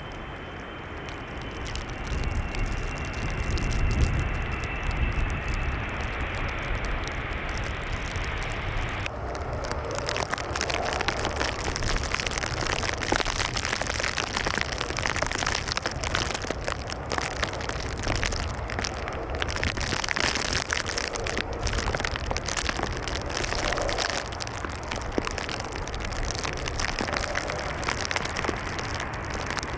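Jet airliner's engines during a landing: a high whine slowly falling in pitch over a low rumble, which stops abruptly about nine seconds in and gives way to a steady rushing noise with scattered crackles.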